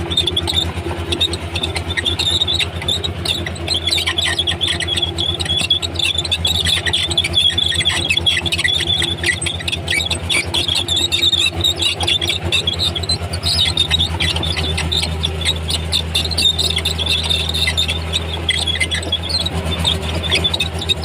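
Komatsu D31P crawler bulldozer working: its diesel engine runs with a steady low drone, and the steel tracks give a continuous high squeal and chatter as the machine moves.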